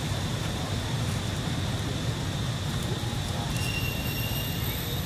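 Steady outdoor background noise: a low rumble under a constant high, thin whine, with a few brief higher chirps in the second half.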